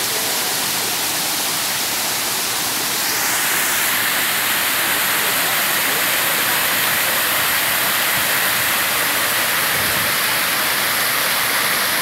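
Small waterfall splashing over sandstone ledges into a pool: a steady rush of falling water that grows louder and brighter about three seconds in.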